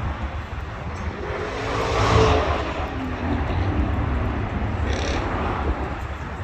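A car engine swells up and dies away, loudest about two seconds in, with its pitch falling as it fades, over a steady low rumble.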